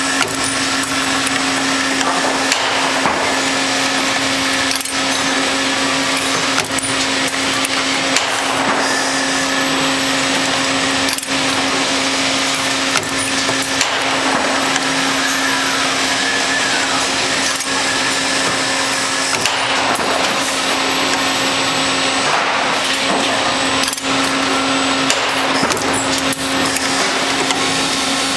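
Automated wire spring-forming machine running, a steady hum under dense mechanical clatter, with sharp knocks every second or few as its tool slides form wire into spring clips.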